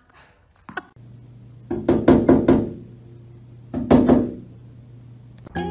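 Sandhill crane pecking at a sliding glass door: a quick run of about four or five sharp knocks, then a second short burst of knocks about two seconds later.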